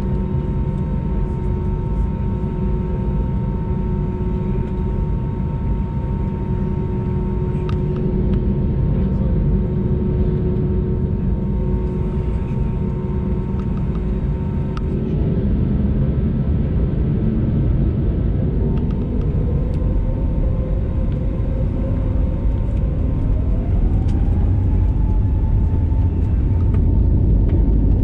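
Airbus A320neo cabin noise: a steady low rumble with several steady whining tones from the jet engines and air systems. About two-thirds of the way in, one whine rises in pitch and holds higher as an engine spools up, and the rumble grows louder near the end.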